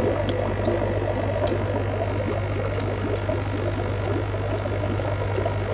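Aquarium water bubbling and churning, as from vigorous aeration, over a steady low pump hum.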